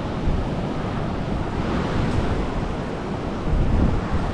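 Wind buffeting the microphone in gusts over a steady rush of outdoor noise, most likely a fast mountain river, with a stronger gust about three and a half seconds in.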